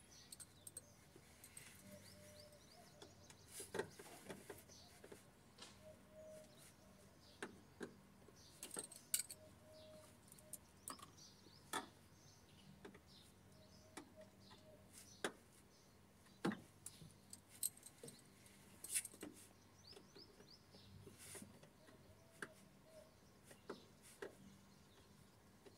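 Faint, scattered clicks, knocks and clinks of hand tools and plastic trim from work under a car's dashboard, with a faint steady hum underneath.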